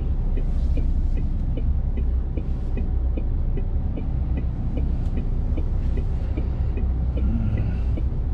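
Articulated lorry's diesel engine running slowly at low revs, a steady low rumble heard from inside the cab, with a light, even ticking about three times a second over it.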